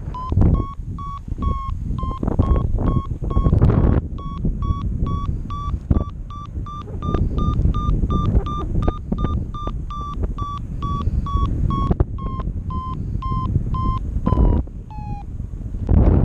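Paragliding variometer beeping about three short beeps a second, the pitch rising a little and then easing back before the beeping stops near the end. The beeps signal that the glider is climbing in lift. Wind gusts rush over the microphone underneath.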